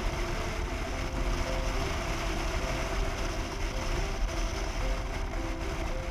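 Motorcycle on the move, its engine and the rush of wind and road noise on the bike-mounted camera microphone. Background music with a simple melody plays over it.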